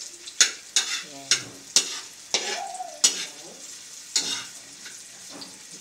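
Metal spatula scraping and clanking against a metal wok while garlic and onion are stir-fried, over a steady sizzle of hot oil. About seven sharp strokes come in the first four seconds, then the stirring eases off.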